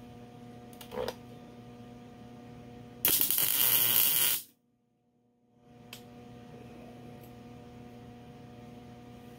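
A wire-feed welder striking one short tack weld on the steel trike frame: a loud crackling hiss about three seconds in that lasts about a second and a half and stops abruptly. A light knock comes about a second in, and a steady low electrical hum sits underneath.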